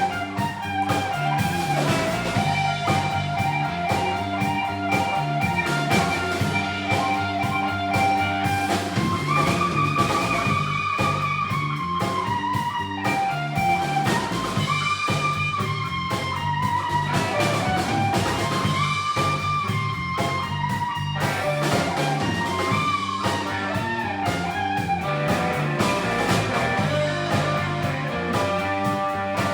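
Live blues electric guitar solo, with long held notes that bend up in pitch, played over the band's steady backing.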